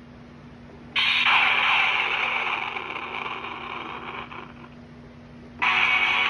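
Monster High Sugar Skull carrying case's built-in sound chip playing its clips: a hissy sound effect cuts in about a second in and fades over a few seconds, then a music clip starts abruptly near the end.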